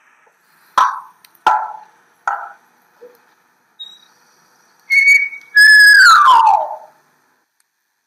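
Whistling. Three sharp short sounds come first, then a short held whistle, then a loud whistle that holds its pitch and glides down, ending about a second before the close.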